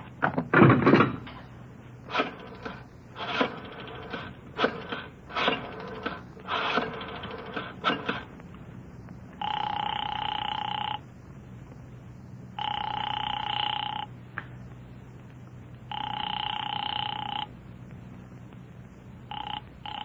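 Old-time radio sound effects of a telephone call. A receiver is lifted with a clatter and a rotary dial clicks through a number, then the line rings three times, each ring about a second and a half long, with a fourth ring starting near the end.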